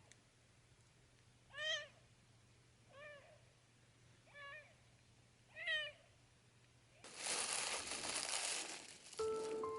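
A tiny kitten mewing four times, short high cries about a second and a half apart. Then a loud rush of noise lasts about two seconds, and piano music begins near the end.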